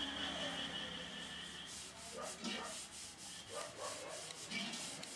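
A kitchen knife chopping ridge gourd on a wooden chopping block: a run of quick, uneven strikes of the blade through the gourd into the wood, starting about two seconds in.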